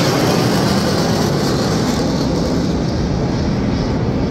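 T-50B jet with a single turbofan engine flying past: a steady, loud rushing roar whose higher hiss gradually fades.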